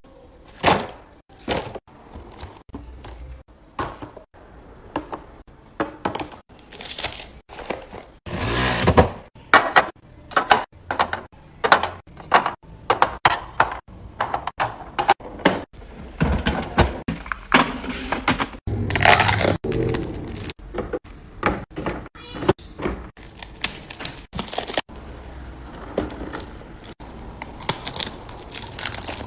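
Irregular knocks, clicks and scrapes of containers and food items being handled and set down while a refrigerator is stocked, with the sound cutting abruptly between short takes.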